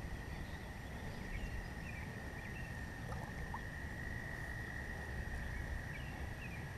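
Quiet outdoor ambience: a steady low rumble with a constant high-pitched drone, and a few faint short chirps.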